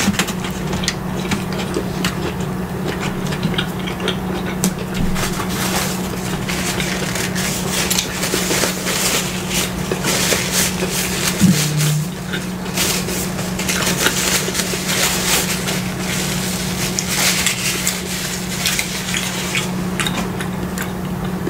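Close-miked chewing and crunching of a burger, a run of many small crackly bites and mouth sounds. Underneath, the air conditioning runs with a steady low hum.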